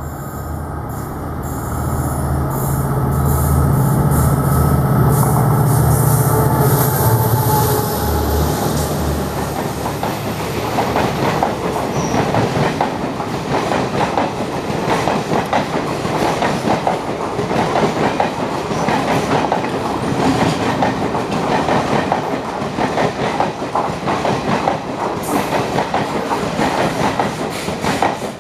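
EMD WDG-4 diesel locomotive passing at speed, its 16-cylinder two-stroke engine giving a deep, loud drone that fades after about eight seconds. Then the passenger coaches run past with a fast, continuous clickety-clack of wheels over rail joints and points.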